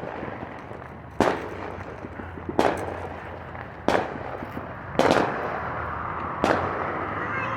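Fireworks exploding: five sharp bangs, roughly one every second and a half, each trailing off into a fading echo.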